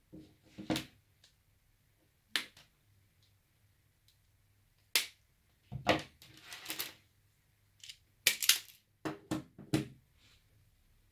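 Sharp snaps and clicks of hand wire cutters and strippers cutting and trimming insulated electrical wire, mixed with tools knocking on a wooden desktop and the rustle of handled wire. About a dozen separate clicks, bunched closer together in the second half.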